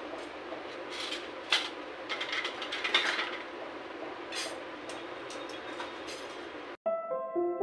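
Steel kitchen utensils and a wire-mesh strainer clinking and scraping as they are hung on a wall-mounted steel utensil rack, over a steady background rumble. Music starts near the end.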